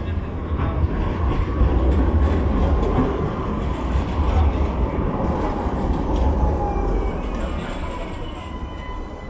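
Alstom Citadis low-floor tram rolling into a station past the listener: a heavy low rumble and wheel-on-rail noise, loudest in the first few seconds, then growing quieter as it slows to a stop.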